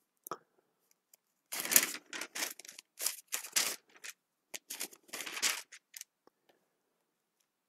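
Thin Bible pages being leafed through: a run of short papery rustles and flicks for a few seconds, then stopping.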